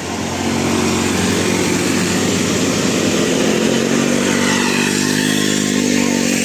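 A vehicle engine revving loudly, its pitch climbing and then easing back.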